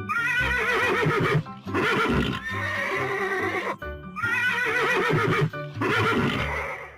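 A horse neighing: a quavering whinny, heard twice in a row, over light background music.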